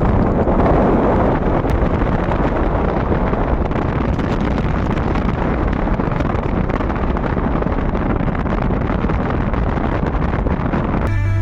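Loud steady rushing noise with wind buffeting the microphone, heavy in the low rumble. Music cuts in abruptly near the end.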